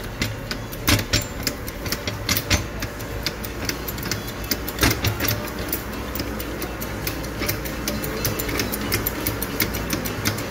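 A 2-ton Truper hydraulic floor jack being pumped by its handle, its saddle rising: a run of sharp metallic clicks, several a second, over a steady low hum.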